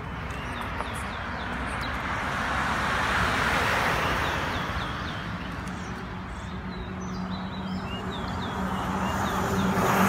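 Road traffic passing: a car's tyre and engine noise swells and fades over a few seconds, and another builds near the end. Repeated short, high chirps from a small bird sound over it.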